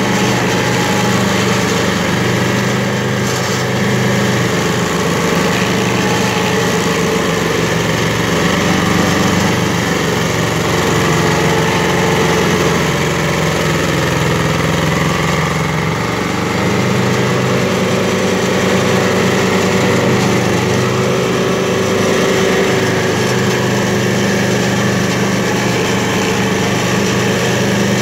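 Stump grinder's engine running steadily under load, its cutter wheel grinding into a large sequoia stump.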